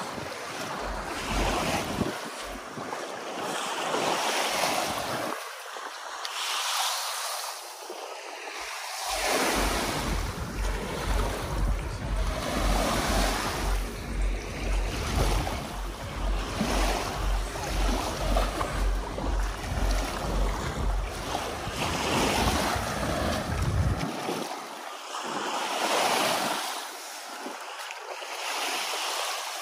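Small sea waves washing and swelling against a rocky shore, with wind buffeting the microphone. A low, evenly pulsing hum runs through the middle, starting about nine seconds in and stopping about twenty-four seconds in.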